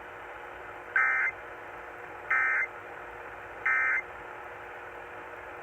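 Emergency Alert System end-of-message data bursts: three short, buzzy digital screeches about 1.3 seconds apart. They signal the end of the broadcast alert.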